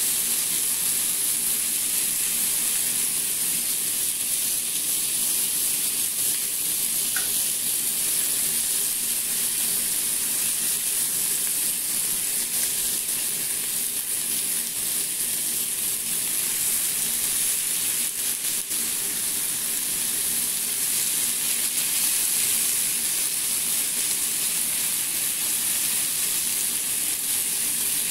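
Chicken breast fillets sizzling in a hot flat pan: a steady frying hiss.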